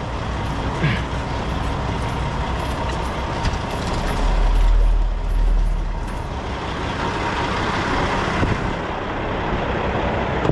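Diesel engine of a 2000 Freightliner FLD semi truck running at low speed, with a deeper, louder rumble for about two seconds around the middle.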